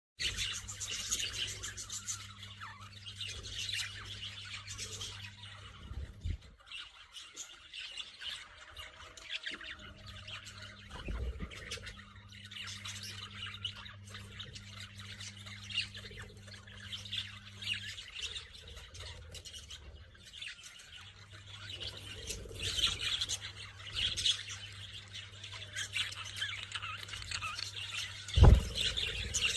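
Green parrots squawking and chirping in a dense run of short, high calls. A low hum runs under much of it, dropping out and returning, and there is one loud thump near the end.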